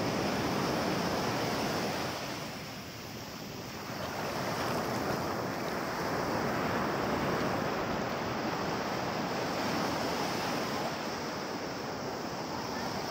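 Sea surf washing up a sandy beach in a steady rush. The wash eases for a moment about two seconds in, then builds again.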